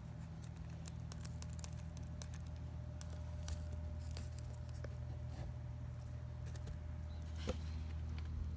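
Scattered light clicks and rustles of hands handling things, over a steady low hum, with one sharper click about seven and a half seconds in.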